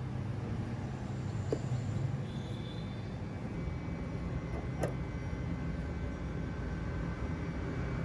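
A cast lead cone sinker set down on a plastic digital kitchen scale with a light click about five seconds in, after a smaller click about one and a half seconds in, over a steady low background rumble.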